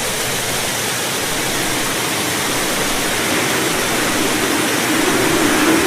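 Stormy sea sound effect: a steady rushing of wind and water that grows slowly louder.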